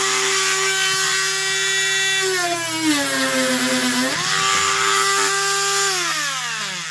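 Ryobi HT20VSK rotary tool's 90-watt permanent-magnet motor whining at high speed. About two seconds in, a coarse sanding drum is pressed into a wooden carpenter's pencil: the pitch drops as the motor bogs down under the load, then climbs back when the drum is lifted off. Near the end it is switched off and the whine falls away as it spins down.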